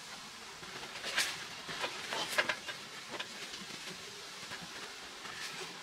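Lid cover being fitted and pressed down over a portable ice bath tub: a cluster of rustles and light clicks from about one to three seconds in, over a faint steady hiss.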